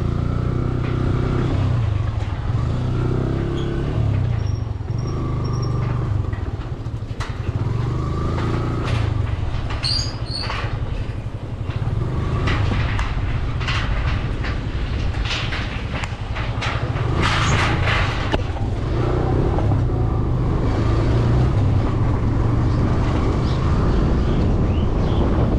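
A motor vehicle running, a steady low rumble with its pitch shifting now and then, and a spell of rattles and knocks in the middle.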